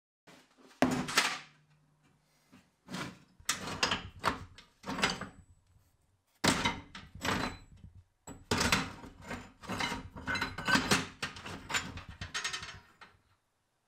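Rusty scrap steel pieces (old files, rebar, a hammer head) knocking and scraping against each other and the sides of a galvanized metal bucket as hands rummage through it, in several bursts of rattling.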